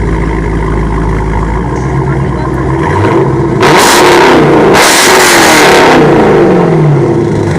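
A car engine revving hard: its pitch climbs from about two and a half seconds in, it is very loud for about two seconds, then the pitch falls away.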